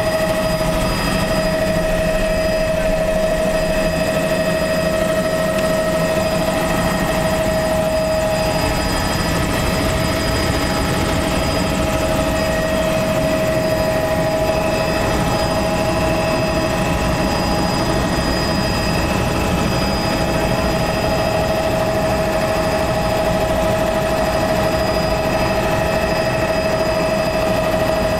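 Small sightseeing helicopter in flight, heard from inside the cabin: a steady engine and rotor drone with a constant whine over it.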